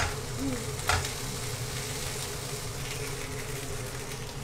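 Lotus root slices stuffed with minced pork sizzling steadily as they pan-fry in oil, with a short click about a second in.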